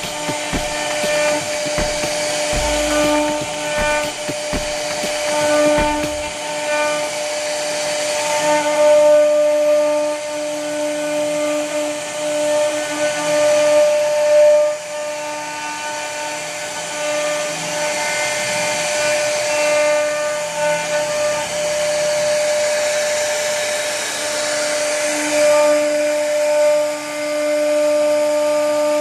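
CNC router spindle running with a steady high whine as its bit carves wood, the cutting noise swelling and easing as the load changes.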